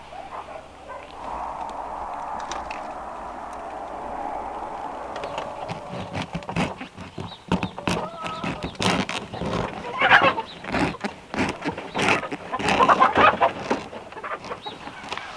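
A knife sawing through a crusty loaf of bread, the crust crackling and crunching in a long run of sharp, irregular crackles from about five seconds in. In the first few seconds there is a steady rushing noise.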